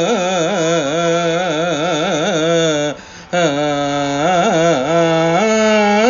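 A male voice singing a Sanskrit sloka unaccompanied to a slow classical Indian melody. Long held syllables waver rapidly in pitch, with a brief breath pause about three seconds in.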